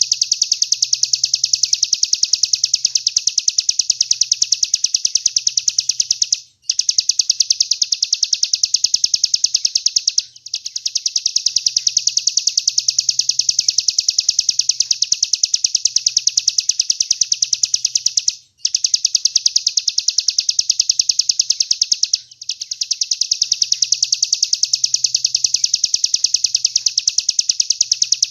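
Songbird masteran recording: a bird repeating one sharp, high chirp in a fast, even run of many notes a second, with a few brief breaks.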